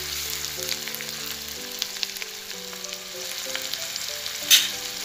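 Chopped onions sizzling in hot oil in a steel kadai, with a spatula scraping and clicking against the pan as they are stirred. One louder knock comes about four and a half seconds in.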